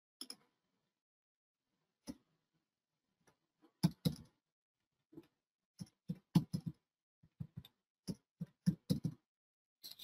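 Computer keyboard typing: single key clicks in short, irregular runs with quiet gaps between, as numbers are entered.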